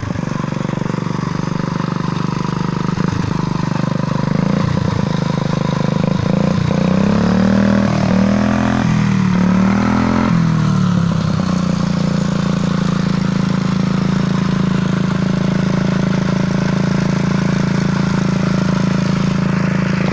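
Bernard 127 engine on a homemade motorized bicycle running, revved up and down several times in the middle, then settling back to a steady idle.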